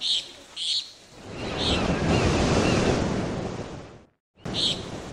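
A wave washing in, a rushing swell that builds about a second in, holds, then fades away and cuts off, with short high chirps before and after it.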